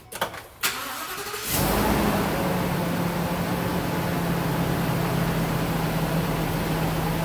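Ford 6.8L V10 engine being started: two clicks, a brief starter crank, then the engine catches about a second and a half in, flares up and settles into a steady idle. It is run for a few seconds on fresh oil to circulate it and fill the new oil filter.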